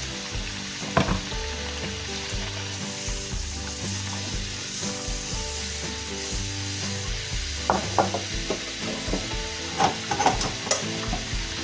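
Food deep-frying in a wok of hot oil, sizzling steadily, with a few sharp clinks and scrapes of a metal utensil stirring against the wok about a second in and again in a cluster near the end.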